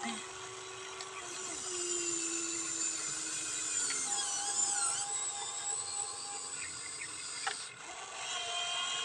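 Small electric motors of a Huina 1593 RC excavator whining as it works, several tones at once, the pitch sliding and wavering as the motors load and change speed, with a sharp click about three-quarters of the way through.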